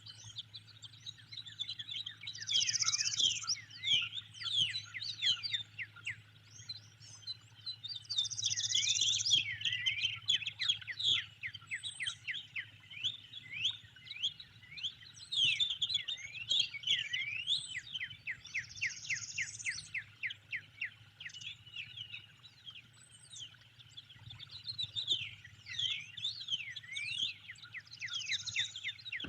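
Small songbirds chirping and singing in quick, sweeping notes, with a higher buzzy phrase repeated about every eight seconds, over a faint steady low hum.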